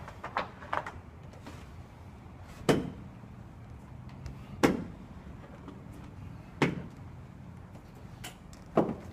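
Sharp knocks, about one every two seconds, over a steady low hum.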